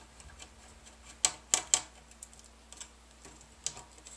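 Small sharp clicks of a magnetic screwdriver and tiny screws against the plastic screen bezel of a Lenovo V570 laptop as the screws are taken out: three close together about a second in, a few lighter ticks, and one more near the end.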